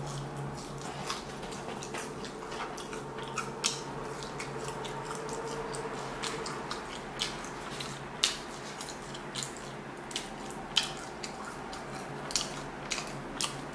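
Close-up chewing and wet mouth clicks of someone eating fried chicken nuggets, with sharp smacks at irregular intervals. A faint steady hum sits underneath.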